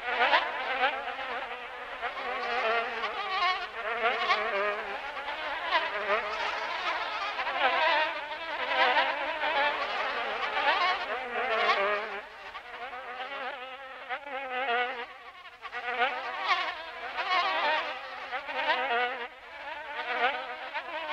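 A dense, insect-like buzzing made of many wavering tones at once, swelling and fading every second or two. Its lower part thins out about twelve seconds in.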